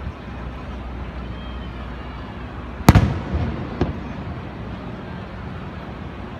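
An aerial firework shell bursting with one sharp, loud bang about three seconds in, followed by a fainter second bang just under a second later.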